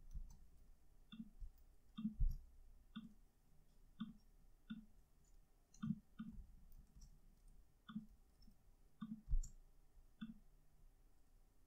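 Faint clicking of a computer mouse, about a dozen irregularly spaced clicks, with two dull low thumps, one about two seconds in and one about nine seconds in.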